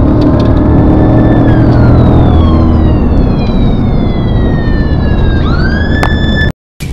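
Police siren wailing in long slow falls and a quick rise in pitch, over a loud steady engine drone; both cut off suddenly near the end.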